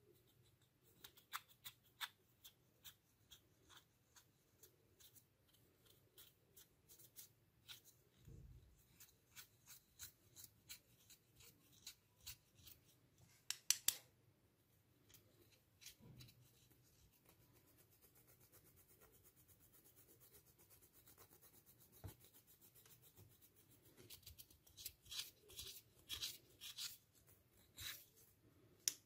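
Faint, scratchy scraping of a plastic tool digging into pressed eyeshadow powder in its pan, crumbling it: quick, irregular dry ticks that come in clusters, thickest near the start, about halfway through and near the end.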